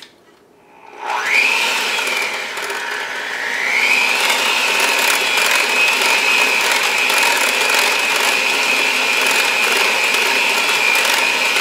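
Cuisinart electric hand mixer starting up about a second in and running with a steady whine as its beaters mix muffin batter in a glass bowl; the whine rises in pitch around four seconds in as the mixer speeds up, then holds steady.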